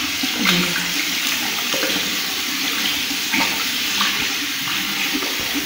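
Water running steadily from a washbasin tap and splashing over hands as they are rinsed under the stream.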